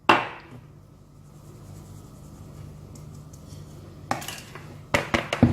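Kitchen utensils knocking and clinking against dishes: one sharp knock at the start, then a few quicker clicks and knocks near the end, with a faint steady low hum in between.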